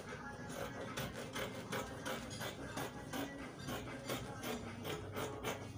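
Scissors cutting through printed cotton fabric laid on a table: quick repeated snips, about three or four a second.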